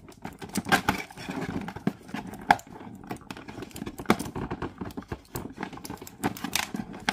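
Hands untwisting white twist ties that hold a small black plastic piece to a cardboard backing: irregular clicks, scrapes and rustles of cardboard and plastic, with a sharper click about two and a half seconds in.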